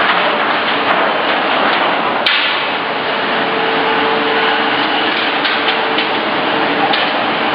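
Wagon tippler machinery running: a dense, steady industrial noise with a constant hum, scattered knocks and one sharp knock a little over two seconds in.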